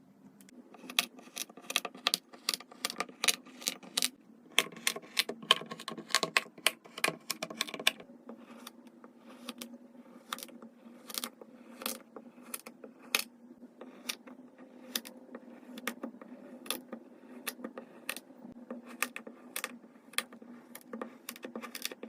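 Kinetic sand being cut and pressed with a knife, making crisp crunching clicks: a dense run for the first several seconds, then sparser clicks about two a second, over a faint steady hum.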